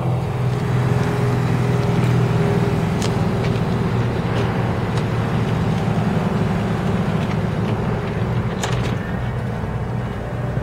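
An engine idling with a steady low hum, with a few light clicks over it.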